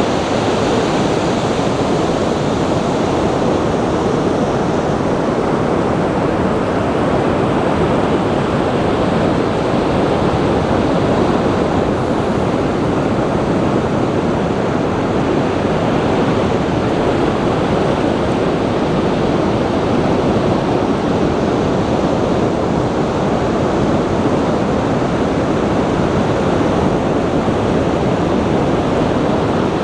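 Steady rush of moving water, even and unbroken with no rise and fall of waves.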